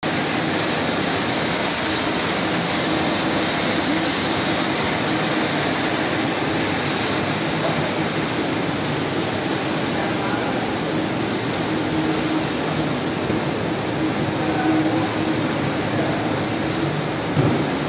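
EKO 198 sunflower seed roasting machine running: a steady whir of its fans and conveyors with a low hum underneath, and one brief knock near the end.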